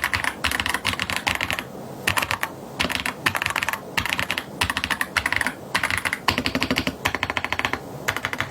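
Typing on an AJAZZ AK820 Pro mechanical keyboard with Sea Salt linear switches and PBT keycaps: rapid runs of keystrokes in bursts of about a second, broken by short pauses.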